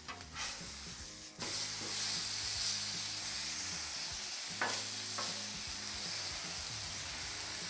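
Steak sizzling on a hot Blackstone flat-top griddle, the sizzle growing much louder about a second and a half in, with a few short knocks.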